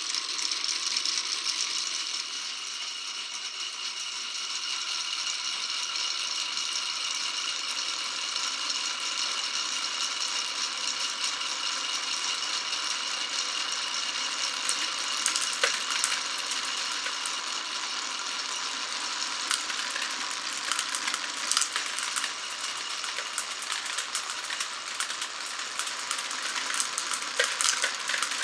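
Marbles rolling and rattling along a marble run's wooden and plastic tracks, with a steady high ringing tone in the first half and a denser clatter of clicks and knocks from about halfway on.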